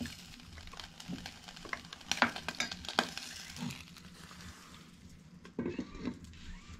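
Faint sizzling and crackling at a wood-burning stove with pots of soup, milk and tea on its top, broken by scattered sharp clicks and knocks, the loudest a little after two seconds in.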